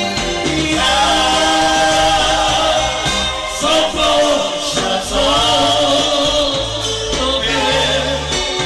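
Men singing a Romani song into microphones, amplified over backing music with a steady bass line.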